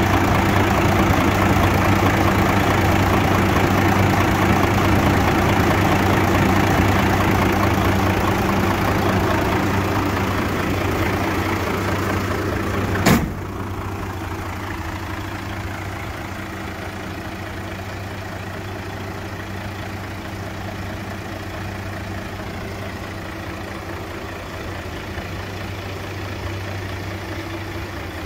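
Mercedes-Benz Actros 2643's V6 diesel engine idling steadily, first heard close up in the open engine bay. About halfway through there is a sharp click, and the idle then sounds quieter and further off.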